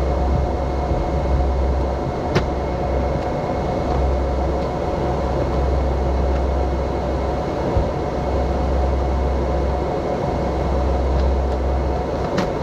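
Tractor engine running steadily with a low drone, and a couple of sharp clicks.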